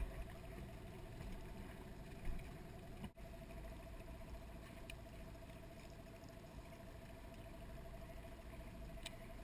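A small boat's motor running steadily, a constant hum over a low rumble, with a brief dropout about three seconds in.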